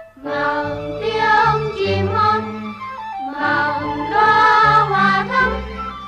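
Music of a Vietnamese children's song: a melody in two phrases over instrumental backing.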